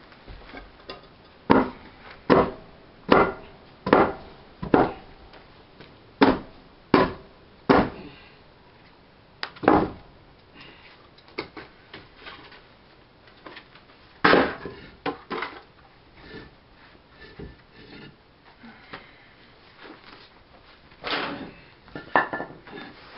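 Sharp knocks of firebrick and wood being struck and set in place while a kiln door is bricked up around its wooden arch support: a run of about nine knocks roughly one a second, then a few scattered ones later on.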